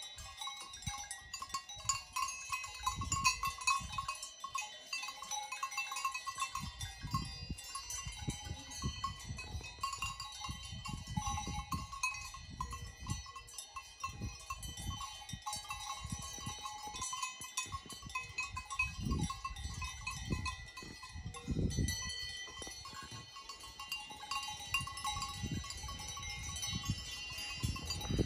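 Alpine livestock bells on grazing goats and cows ringing and clanking steadily and irregularly, mixed with uneven low rumbles.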